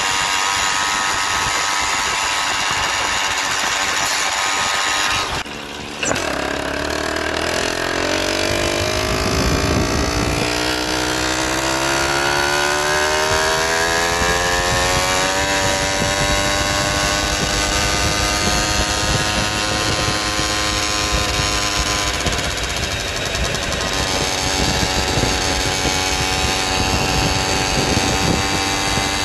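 Small motorized-bicycle engine running at speed. About five and a half seconds in it drops out for a moment, then its pitch climbs steadily for the next ten seconds as the bike accelerates, and it holds a steady high pitch after that.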